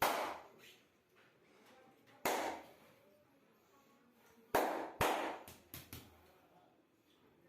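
Sharp, loud smacks of a masseur's hands striking the body in a percussive massage finish. There is one at the start, another a little after two seconds, then a quick run of five between about four and a half and six seconds, each ringing off briefly.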